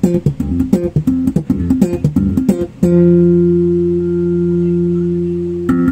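Electric bass guitar played with the fingers: a quick run of plucked notes, then a single note left ringing for about three seconds, then quick notes again near the end.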